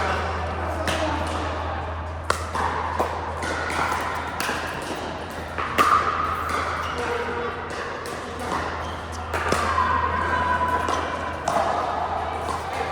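Pickleball paddles striking a plastic ball: several sharp pocks at irregular gaps of about a second or more, over background voices and a steady low hum.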